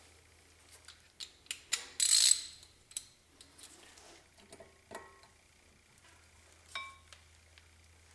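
Irregular small metal clicks and clinks of a hand tool working the brake rotor's alignment screw on the wheel hub, with a short loud rasp about two seconds in and a ringing metal clink near the end.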